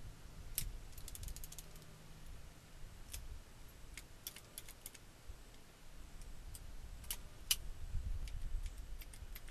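Metal clicks from a Ruger Old Army percussion revolver's action as the hammer and cylinder are worked by hand, with a quick run of clicks about a second in and scattered single clicks after. The cylinder is tied up: a ball has crept forward out of its chamber and is blocking the cylinder's rotation.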